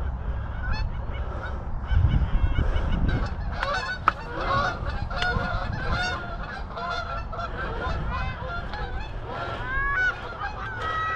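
A flock of Canada geese honking, many short calls overlapping one another.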